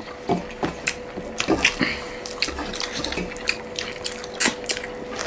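Close-miked eating by hand: wet chewing and lip-smacking and fingers squishing rice and fish curry on metal plates, making many short wet clicks. A faint steady hum sits underneath.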